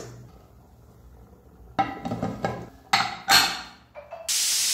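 Aluminium Butterfly pressure cooker being closed: a few short metal clanks and knocks as the lid goes on. Near the end the cooker's whistle vents steam in a loud steady hiss, the pressure having built up.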